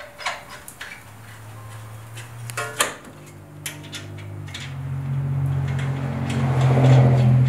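Clinks and knocks of metal suspension parts being handled at a car's front hub and strut, over a steady low hum that grows louder through the second half.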